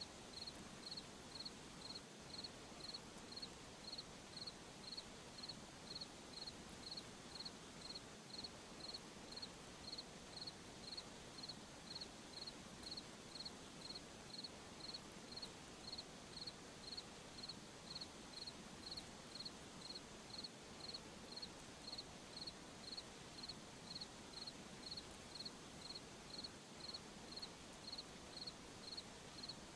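A cricket chirping faintly in an even, unbroken rhythm, about two short high-pitched chirps a second, over a faint steady hiss of night ambience.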